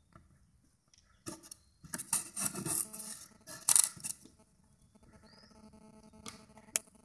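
Thin floor panel crackling and creaking as a finger presses down on it near its edge, in several bursts, the longest and loudest from about two to four seconds in, then two short clicks near the end.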